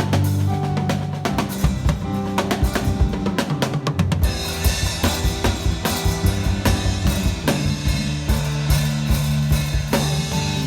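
Live band playing with a busy drum kit, bass drum and snare strikes over a steady bass line, during a sound check.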